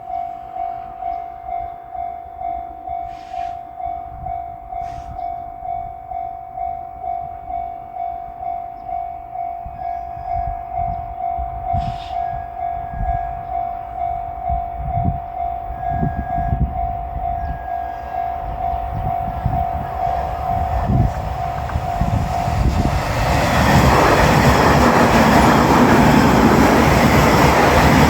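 A level-crossing warning bell rings in a steady kan-kan rhythm while an approaching train's rumble grows underneath. About 23 seconds in, the bell stops and a JR Shikoku 8000 series limited-express electric train passes at speed, with loud running noise to the end.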